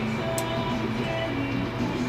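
Background music with a steady melody and a brief high click about half a second in.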